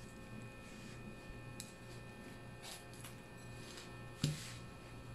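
Faint handling of a fried bread roll and a small ceramic plate on a table: a few light taps and one sharper knock about four seconds in, over a steady low hum.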